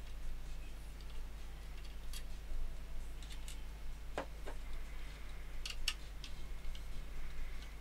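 Scattered light clicks and taps of plastic and small metal parts as a part-dismantled femtocell's casing and circuit boards are handled and a screwdriver is picked up, the sharpest a pair of clicks about six seconds in, over a steady low hum.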